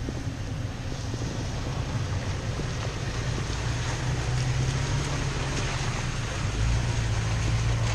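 Toyota Tacoma driving along a dirt trail: a steady low engine drone with wind and road noise, growing slowly louder.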